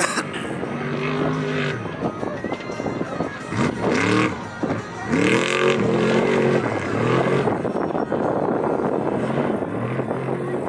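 Off-road race vehicle's engine revving up and easing off again and again as it is driven through a rhythm section of whoops. The engine pitch climbs and drops about four times.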